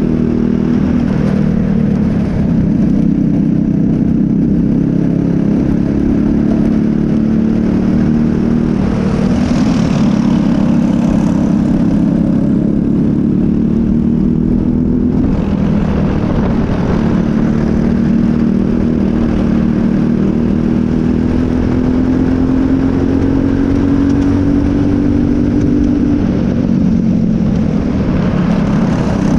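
Briggs & Stratton LO206 single-cylinder four-stroke kart engine running at racing speed, heard on board. Its note rises along the straights and dips off the throttle several times, with wind and road noise underneath.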